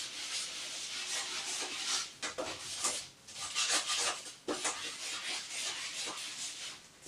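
A long-handled mop head scrubbing back and forth across glazed ceramic wall tiles in uneven rasping strokes, with short pauses about three seconds in and again about halfway through.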